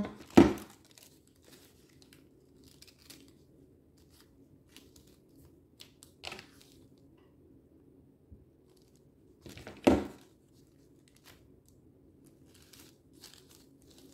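Coffee-filter paper rustling and crinkling as petals are handled, glued and pressed together, with two louder short bumps, one just after the start and one about ten seconds in.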